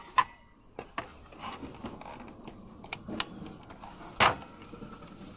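Plastic wire-harness connectors being handled and plugged onto an inverter air conditioner's outdoor control board: a few short sharp plastic clicks, the loudest about four seconds in, over light rustling of the wires.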